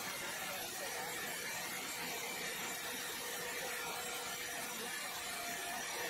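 Large horizontal band sawmill blade cutting lengthwise through a big log: a steady hiss of sawing over a faint, even machine hum.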